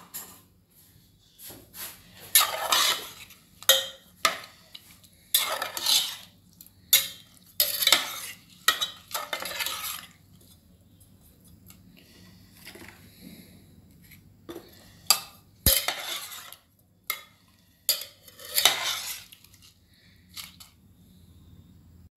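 Metal ladle clinking and scraping in an aluminium pressure cooker full of vegetables and water, in a run of short strokes, with one sharp knock against the pot about two-thirds of the way through.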